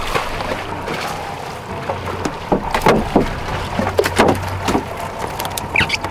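Kingfish (king mackerel) flopping and slapping against a boat deck: a run of thumps between about two and a half and five seconds in, over the steady hum of the outboard motor running.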